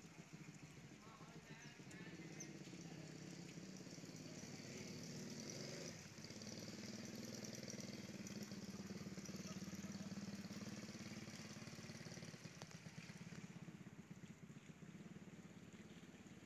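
Faint motorcycle engine running as it passes on wet pavement, growing louder over the first few seconds and fading after about thirteen seconds.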